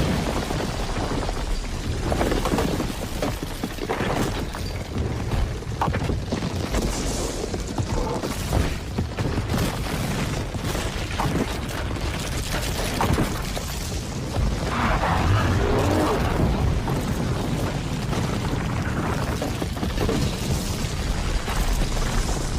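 Film destruction sound effects: a continuous deep rumble with repeated booms and crashes layered over it, like a cataclysmic impact and falling debris.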